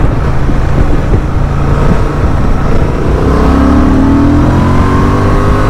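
Honda Transalp's 755 cc parallel-twin engine running under way, then pulling harder with its pitch rising steadily from about halfway through, over a constant loud rumble of wind and road noise.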